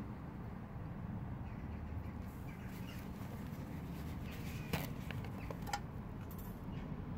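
Small metal tin set down on the steel grate of a folding camp stove: a sharp clink about two-thirds of the way through and a lighter one a second later, over a steady low background noise.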